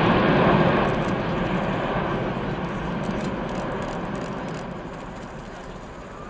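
Jet noise from an Airbus A380's four engines as it flies past, fading away steadily.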